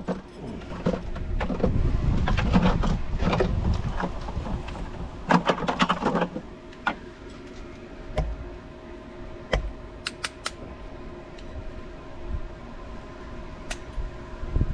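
Rustling, knocking and clicking of hands and tools working at the pump's wiring, dense for about six seconds, then a faint steady hum with a few scattered clicks.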